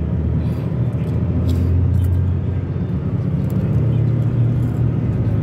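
Steady low rumble of a moving road vehicle's engine and tyres while driving, with a faint engine hum that shifts slightly in pitch.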